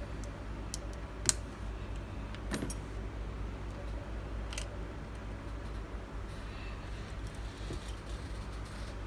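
A few sharp, small metallic clicks and taps from handling an opened iPhone 7 Plus and small metal repair tools, the loudest about a second in, over a steady low hum.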